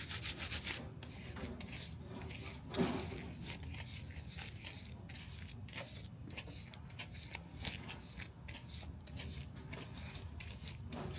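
Gloved hands rubbing and squeezing a wetted fiber-reinforced resin tape grip wrapped on a tool handle, in a run of quick strokes with one louder stroke about three seconds in. The rubbing compresses and smooths the water-activated tape while it sets.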